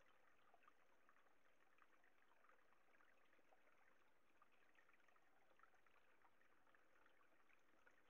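Faint, steady trickle of a small stream, close to near silence.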